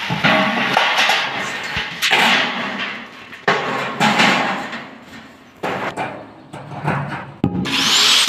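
A series of sharp knocks on metal, about seven of them, each ringing briefly and fading. Near the end an angle grinder starts up with a rising whine.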